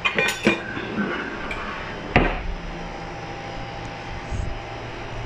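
Kitchen clatter from jars and utensils being handled: a few clinks at the start and one sharp knock about two seconds in, over a steady low hum.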